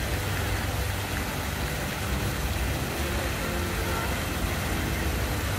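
Illuminated fountain jets spraying and splashing water in a steady rush, over a low steady rumble.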